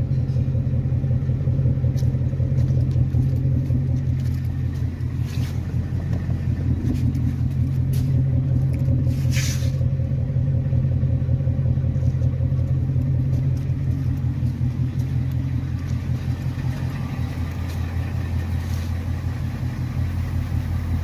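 A 2020 Ford Mustang's engine idling steadily, low-pitched and even, with a few short faint noises over it.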